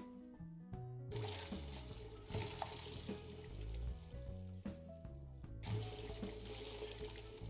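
Kitchen tap running into a sink, turned on about a second in and off about five and a half seconds in, as roasted jalapeño chiles are rinsed to wash off their charred skin. Background music plays throughout.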